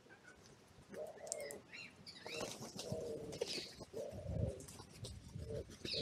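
Wild birds calling: a string of low, half-second calls repeated at uneven intervals, with thin high songbird chirps above them and a brief flurry of wing flaps about four seconds in as crows take off.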